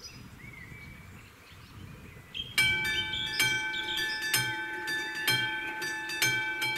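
Level-crossing warning bell of an AŽD 71 crossing system starting up about two and a half seconds in and ringing with rapidly repeated strikes, signalling that the crossing is closing for an approaching train. Faint birdsong before the bell starts.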